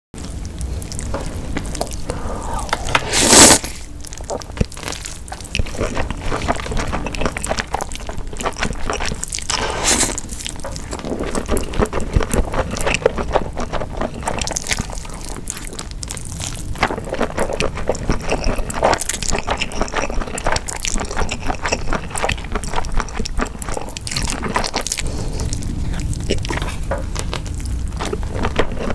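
Close-miked mukbang eating of spicy cold noodles: wet slurping, chewing and sticky mouth sounds, with a loud rushing burst about three seconds in.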